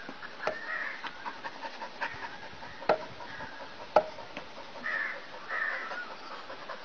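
Birds chirping and calling, with a few sharp knocks; the loudest knocks come about three and four seconds in.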